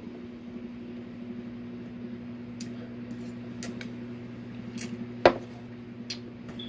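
Scattered small clicks and clinks of eating, utensils and food against a plate, with one sharper, louder click about five seconds in, over a steady low electrical hum.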